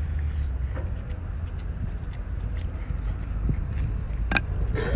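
A man slurping shellfish meat from the shell and chewing, heard as small wet clicks with a stronger slurp about four seconds in, over a steady low rumble.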